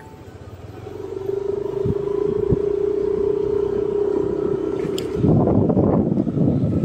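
Motor scooter pulling away and accelerating, its engine holding one steady drone as the automatic transmission keeps the revs even. From about five seconds in, loud wind buffeting on the microphone covers it as speed builds.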